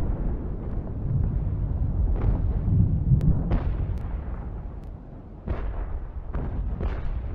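Distant naval cannon fire, muzzle-loading guns of sailing warships: a continuous low rumble of gunfire with repeated booms. The level dips briefly, then a sharp report comes about five and a half seconds in.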